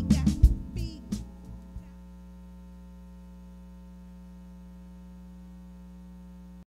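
A funk band's last notes and drum hits die away within about two seconds, leaving a steady electrical hum that cuts off abruptly near the end.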